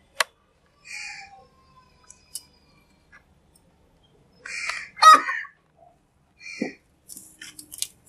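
House crows calling: a few separate harsh caws, the loudest about five seconds in, with short sharp clicks near the end.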